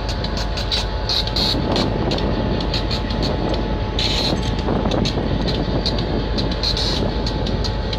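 Steady low rumble of diesel switcher locomotives running in the yard, with many quick, irregular ticks of raindrops hitting an umbrella close to the microphone.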